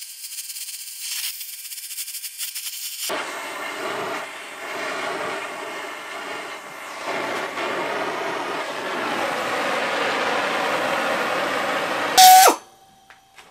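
Oxy-acetylene torch flame hissing steadily as it heats a steel round bar in a vise for bending. Near the end the flame cuts off with a loud sharp pop.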